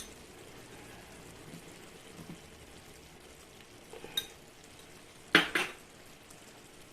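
Metal spoon and utensils clinking against a cooking pan and spice containers: a light click at the start, a couple of soft taps about four seconds in and a louder double clatter about five and a half seconds in, over the faint steady sizzle of tomato thokku cooking.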